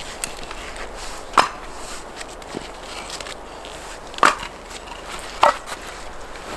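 Three sharp knocks, the second about three seconds after the first and the third a second after that, each with a short ring.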